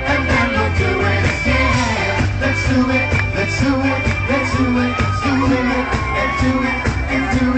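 Live pop song from a band and singer, with a steady drum beat and bass under the vocal line. A long note is held from about five seconds in.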